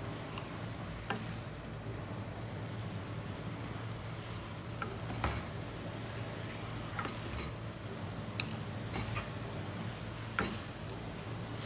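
Yellow egg noodles and glass noodles being tossed and stirred in a nonstick wok with two wooden spatulas: a faint sizzle with scattered taps and scrapes of wood against the pan, about ten in all. A steady low hum runs underneath.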